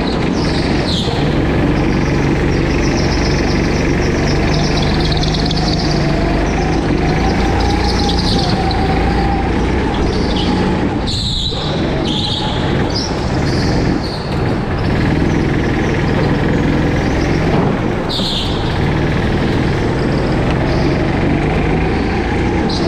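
Go-kart engine running at speed, heard from the driver's seat, its pitch rising and falling as the kart accelerates and slows through the corners, with short high-pitched squeals now and then.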